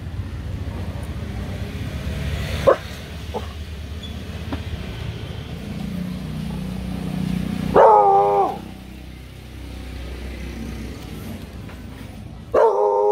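Rottweiler puppy barking twice, about four seconds apart, each bark drawn out and dropping in pitch at its end: warning barks at a stranger passing the house. Low street-traffic rumble, a motorbike among it, runs under the first half.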